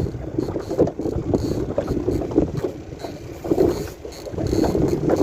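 Wind buffeting the microphone in irregular gusts, a choppy rumble.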